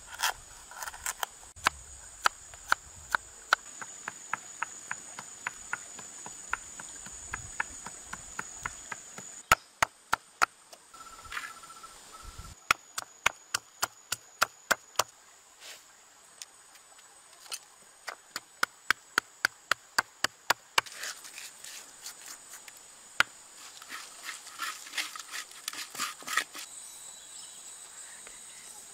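A heavy knife chopping ginger on a wooden block, then a pestle pounding chillies and garlic in a stone mortar: sharp separate knocks, in runs of two or three a second with short pauses. Insects chirr steadily in the background.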